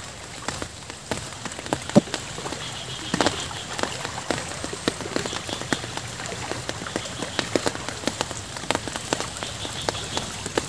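Steady rain falling, with many sharp taps of individual drops landing close by.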